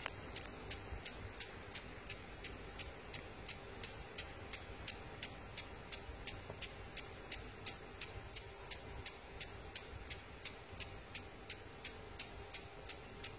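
Impact sprinkler ticking steadily, about three sharp clicks a second, as its arm strikes the water jet and steps it round while watering the field.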